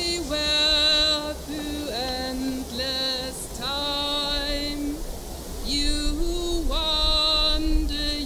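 A woman and a man singing a Zen liturgical chant together from chant books, in long held notes that step up and down in pitch.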